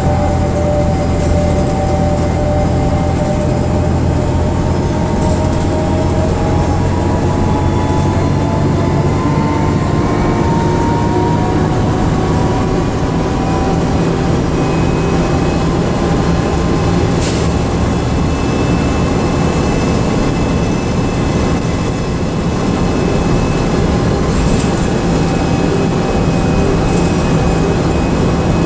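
DAF DB250 double-decker bus under way, heard from inside on the upper deck: a steady engine drone with road noise and a whine that drifts slowly in pitch during the first half. A single sharp click about two-thirds of the way through.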